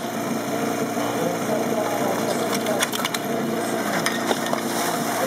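Portable fire pump engine running steadily at idle, with several sharp metallic clacks about two and a half to three seconds in as the suction hoses are coupled to the pump.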